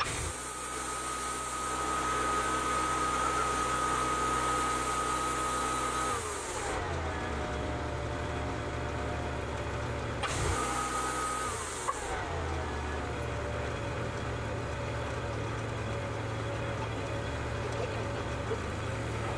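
Wood-Mizer hydraulic portable sawmill's engine running with its hydraulics worked from the controls: twice a steady high whine with a hiss holds for a few seconds, then falls away in pitch as it is released, about six seconds in and again around twelve seconds in.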